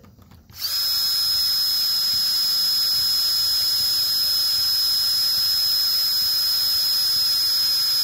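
Cordless drill starting about half a second in and then running at a steady speed with a high whine as it bores a small pilot hole through the thin sheet-metal door jamb for a self-tapping screw.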